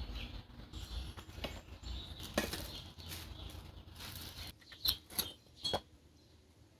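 Rustling, shuffling handling noise as parts are worked inside a gas grill, ending with three sharp clicks in the last couple of seconds.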